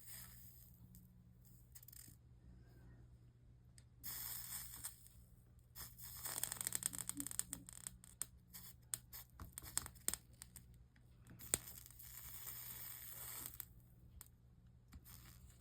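Flux sizzling and crackling as a soldering iron melts 60/40 solder along the copper-foiled seams of a stained-glass panel. It comes in three bursts: a short one about four seconds in, a longer crackly stretch in the middle, and another near the end.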